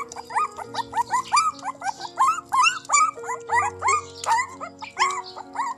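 Puppies whimpering and squealing over and over, several short rising-and-falling cries a second, while they crowd a tray of rice to eat. Background music with long held notes plays underneath.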